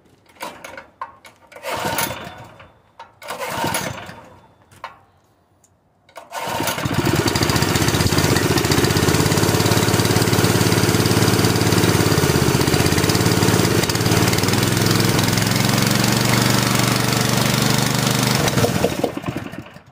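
Honda GX160 single-cylinder engine on a portable air compressor, running on propane: it sputters in a few short, uneven bursts, then catches and runs steadily for about thirteen seconds before cutting out suddenly near the end. It is popping and dying, which the owner believes points to weak valve springs needing a valve job.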